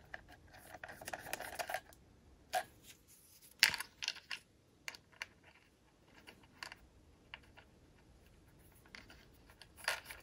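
Faint scraping and small clicks as the threaded control sticks are screwed by hand into the gimbals of a DJI FPV Remote Controller 2, with the controller being handled. One sharper click comes a little before four seconds in.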